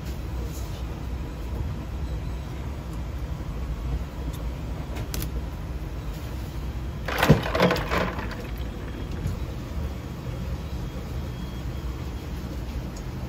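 Steady low hum of kitchen machinery, with a short loud burst of knocking noise about seven seconds in.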